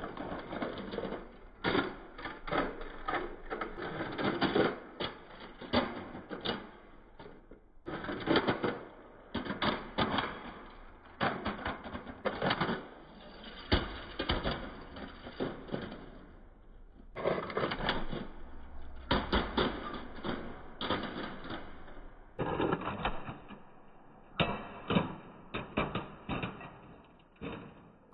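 Diecast Toyota Highlander model car clattering on a concrete floor: a rapid, irregular run of metallic clicks and knocks, several a second, that stops and restarts a few times.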